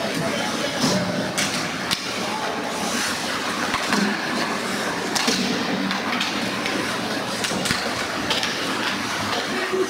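Ice hockey play in a rink: skate blades scraping and carving the ice, with a sharp clack of stick on puck or boards now and then.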